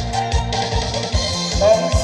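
Trot backing music with a steady drum beat, guitar and held melody notes.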